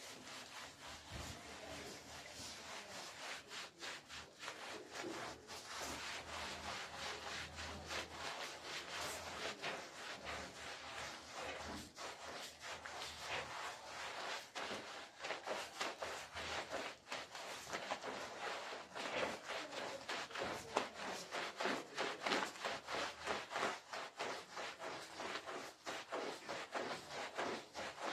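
Stiff push-broom bristles scrubbing a wet, soapy rug: a steady run of quick back-and-forth swishing strokes, several a second.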